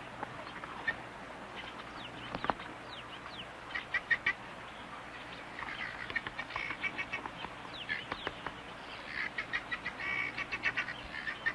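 Fledgling Hadada ibis begging for food from its parent: groups of quick, high chirping calls repeated several times, with a few short falling notes in between.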